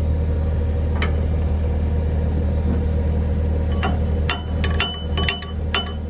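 A steady low hum runs and eases off about four seconds in. As it eases, a quick series of sharp metallic clinks begins, about eight in two seconds, ringing like steel tools striking metal.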